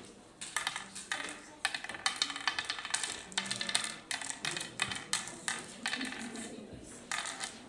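Oware pieces clicking into the carved hollows of a wooden oware board as they are scooped up and sown pit by pit, in several clusters of quick clicks.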